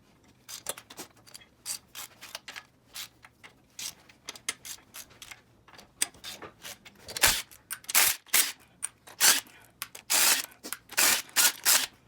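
Hand tools and metal engine parts clicking, clinking and scraping in an irregular rhythm during an engine teardown; the knocks come closer together and louder about halfway through.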